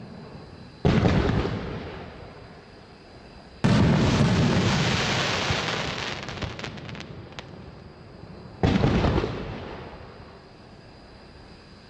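Three sudden blasts from a 500-gram rack of 3-inch aerial firework shells, about a second in, about four seconds in and near the end. Each one rumbles away over a second or more. The middle one is the longest and is followed by a spray of sharp crackling pops from the crackling stars.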